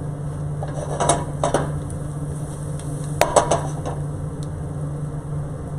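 Stainless steel sauté pan clanking on a gas stove grate as it is handled: a few sharp metallic knocks in two pairs, about a second in and about three seconds in, over a steady low hum.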